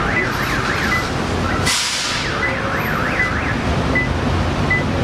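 A car alarm sounding: several rapid warbling up-and-down pitch sweeps, then short single beeps about once a second, then more sweeps, over low traffic rumble. A brief loud hiss comes about a second and a half in.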